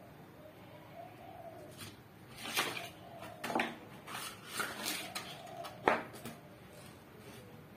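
Sharp clicks and paper rustling as a sheet of sandpaper is wrapped round a sanding drum and fixed with a plastic one-handed bar clamp, the loudest click about six seconds in. Pigeons coo in the background every couple of seconds.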